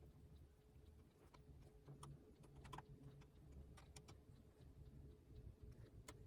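Near silence with a few faint, scattered clicks from a small Phillips screwdriver turning the battery screws into the laptop's case.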